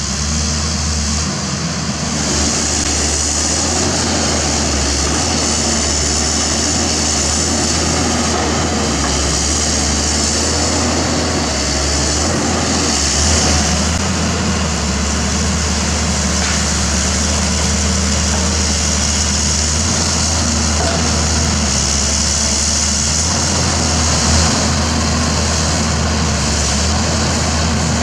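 Pindad Excava 200 excavator's Deutz BF06M2012C six-cylinder turbo diesel engine running steadily while the machine works, with a high hiss that swells and fades above the engine note.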